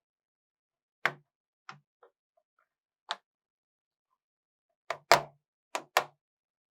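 Plastic snap clips of a laptop's bottom cover clicking loose as the cover is pried off with a plastic opening tool: about eight separate sharp clicks, spaced irregularly, the loudest coming in a quick pair near the end.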